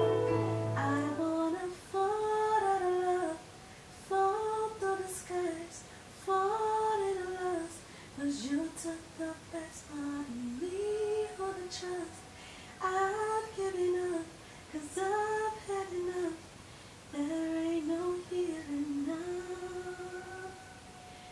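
A woman singing alone, a slow melody in short phrases of a second or two whose pitch bends up and down. Music under the voice stops about a second in.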